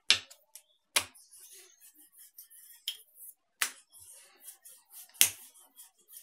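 Wooden rolling pin knocking and clacking on a marble countertop as a round of stiff dough is rolled out: several sharp knocks at uneven intervals, with soft rubbing between.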